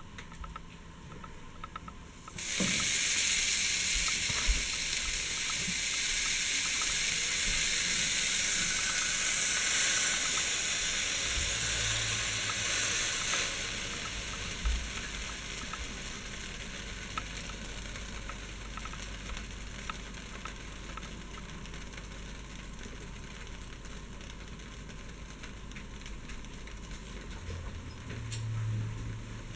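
Grilled cheese sandwich frying in a nonstick skillet. The sizzle starts suddenly about two seconds in as the bread goes into the hot pan, is loudest for the first ten seconds or so, then settles to a quieter steady sizzle. A brief low rumble comes near the end.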